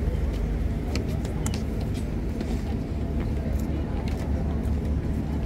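Steady low rumble of a moving vehicle, with a few light clicks and rattles over it.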